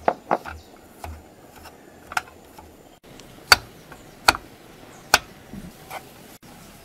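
Metal spoon knocking and scraping against a nonstick frying pan while stirring a lump of paste: a few sharp, separate clicks, the loudest about three and a half, four and a quarter and five seconds in.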